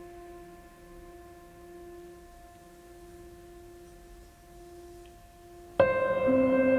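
Background music: a soft held chord of bell-like tones, then a louder piano passage cuts in suddenly near the end.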